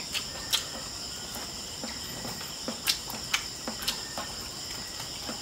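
Crickets chirring steadily, with scattered short clicks and smacks from people eating barbecue and rice by hand.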